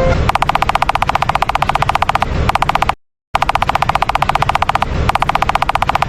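A very fast, even rattle of sharp clicks, broken off twice by short pauses and once, about three seconds in, by a moment of complete silence.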